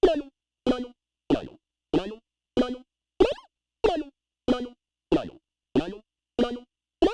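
Analog synthesizer notes through a voltage-controlled vowel formant filter. It plays a steady run of short notes, about three every two seconds, each with a vowel-like sweep, and each dies away quickly before the next.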